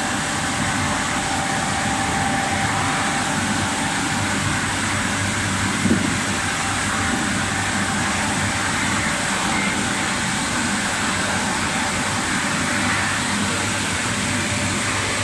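Crate washing machine running steadily: a constant mechanical hum and noise, with a single short knock about six seconds in.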